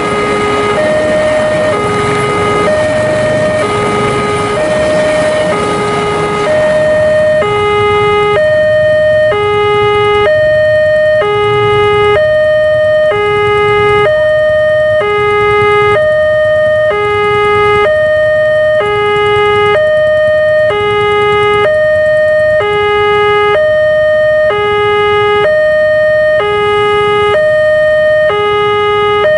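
Railway level-crossing warning alarm sounding a two-tone chime, alternating a low and a higher tone about once a second. For roughly the first seven seconds it is mixed with the rumbling of passenger carriages rolling past, which then fades, leaving the alarm on its own.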